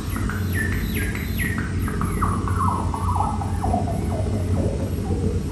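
Electronic noise music: a run of short, swooping chirps, each falling in pitch, that step lower over about four seconds, over a steady low hum.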